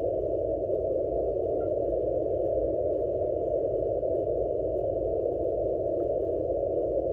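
Steady receiver static from a software-defined radio tuned to 30.000 MHz upper sideband: an even, muffled hiss with no keyed Morse tone clearly standing out of it.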